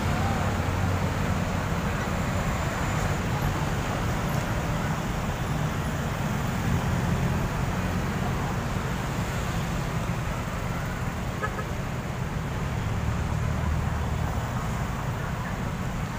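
Steady road traffic of cars, vans and motorcycles driving past close by, a continuous low rumble.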